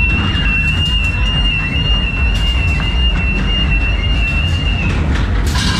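Modern Products ghost train car rolling along its track with a steady low rumble, under a single steady high-pitched tone that stops about five seconds in. Near the end a harsher, buzzing high sound with several pitches cuts in.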